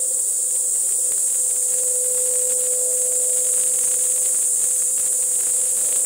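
Single-disc floor scrubbing machine running steadily: a constant motor hum with a strong high hiss, a little stronger about two to three seconds in.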